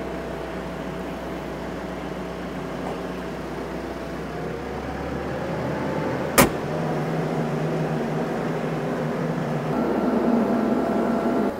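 Tractor engine running steadily, its note shifting a few times and getting louder near the end. A single sharp knock sounds about six seconds in.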